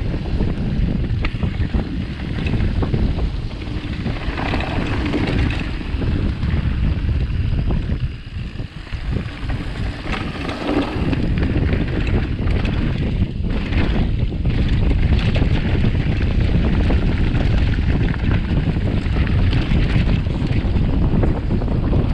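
Wind rushing over the microphone of a mountain bike ridden fast down a dirt trail, with the rumble of the tyres and frequent sharp rattles and clacks from the bike over bumps. The noise eases briefly about eight seconds in.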